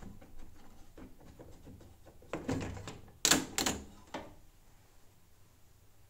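Small clicks and knocks of hands working among the parts inside an opened washing machine. Louder clattering knocks come between about two and a half and four seconds in.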